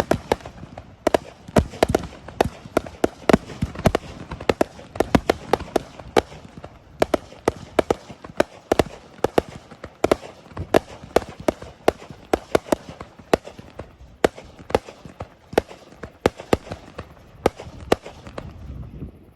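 Fireworks display: aerial shells bursting in a rapid, continuous barrage, many sharp bangs a second with a low rumble between them.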